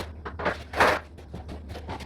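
Handling noises: several light knocks, and a louder short rough scrape about a second in, over a steady low hum.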